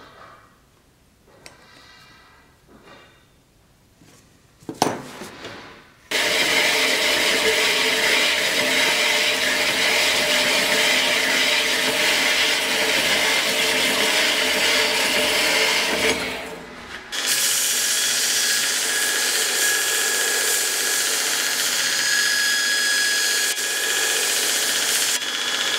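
Faint scraping of a scriber marking out a steel plate, then a clank. A metal-cutting bandsaw then runs steadily through the steel plate for about ten seconds and stops. After that a belt grinder grinds the plate with a steady whine.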